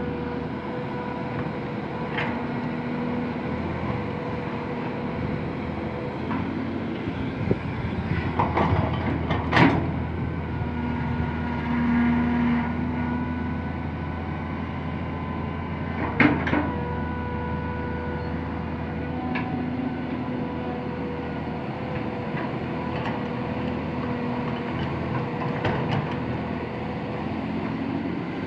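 Tracked hydraulic excavator's diesel engine running steadily under load, with a whine that comes and goes as it digs soil and swings to load a dump truck. A few sharp metal clanks and knocks from the bucket and the work, the loudest about a third of the way in and a little past halfway.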